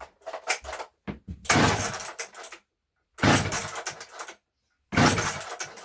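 A Poulan 3750 Bad Boy 60cc two-stroke chainsaw being pull-started. After a few light clicks come three pulls about every two seconds, each a short burst from the engine that falls away.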